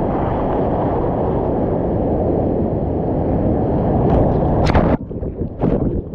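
Turbulent surf water churning close around the camera, a loud steady rumble that cuts off suddenly about five seconds in, leaving scattered splashes.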